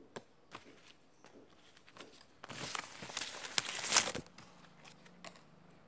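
A few light taps and rustles of handled cards and packaging, then about two and a half seconds in a loud burst of plastic crinkling lasting under two seconds.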